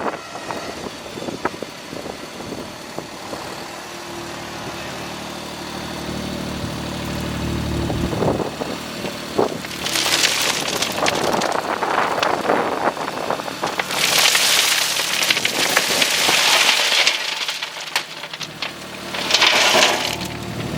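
An engine running steadily, its pitch rising slightly about six to eight seconds in. Then three spells of loose rock pouring and rattling, the longest in the middle.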